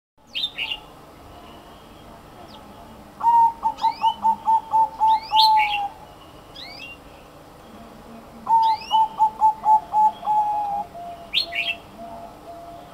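Caged zebra dove (merbuk) cooing: a rapid run of short staccato coos ending in a longer drawn note, about three seconds in and again around eight and a half seconds, the second run trailing off into a lower, slower series. Thin high chirps come in bursts over it, loudest at the very start and near the end.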